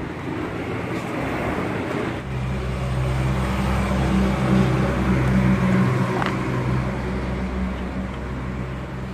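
An engine running steadily, a low hum that comes in about two seconds in, over general traffic noise.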